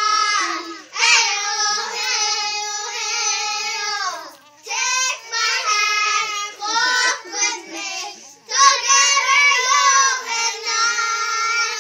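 A group of young children singing together without accompaniment, in long held phrases with short breaks between them.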